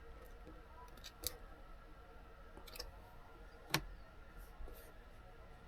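Faint scattered clicks and taps of small parts being handled, about four in all, the sharpest a little past the middle, over a faint steady hum.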